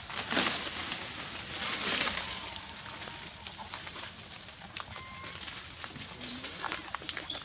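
Tropical forest ambience: a steady high insect hiss with scattered crackles and rustles. Short animal chirps come in near the end.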